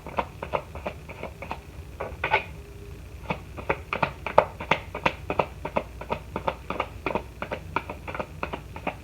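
Tarot cards being handled and shuffled by hand: a run of sharp, irregular card clicks and snaps, several a second.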